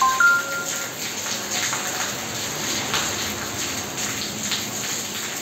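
Rain falling steadily and splashing on a wet tiled floor, with a few short electronic beeps of steady pitch right at the start.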